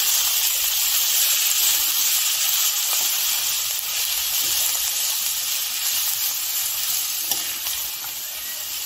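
Chopped vegetables sizzling steadily in hot oil in a stainless steel kadai while a metal spatula stirs them, with a few light scrapes of the spatula on the pan.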